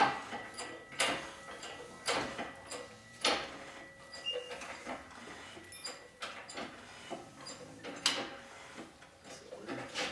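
Irregular knocks and clinks of metal tools and parts being handled on a workbench, one every second or two.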